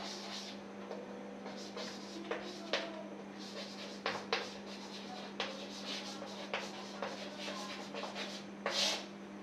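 Chalk writing on a blackboard: irregular sharp taps of the chalk stick and short scratchy strokes as letters are formed, with a longer, louder scratch near the end, over a steady low hum.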